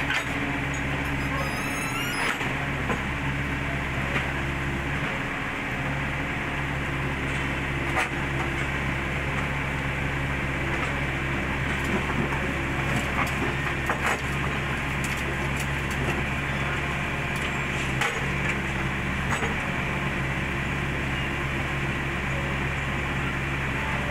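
Kobelco SK50 mini excavator's diesel engine running with a steady low hum that dips briefly twice in the first six seconds, with a few sharp knocks as the machine works onto a steel loading ramp.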